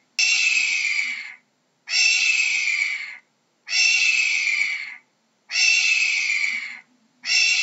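A hawk giving harsh screaming calls, each about a second and a quarter long and falling slightly in pitch, repeated at an even pace: four calls, with a fifth starting near the end.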